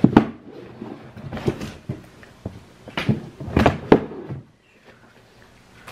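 A few knocks and thuds of household objects being handled and set down, the loudest right at the start and a cluster about three to four seconds in.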